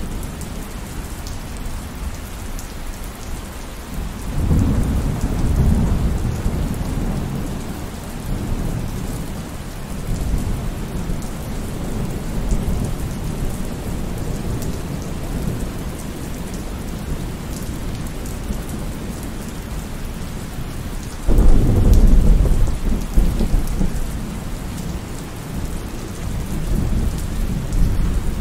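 Steady rain falling, with two rolls of thunder: one rumbling up a few seconds in, and a louder one that breaks suddenly about two-thirds of the way through and rumbles for several seconds.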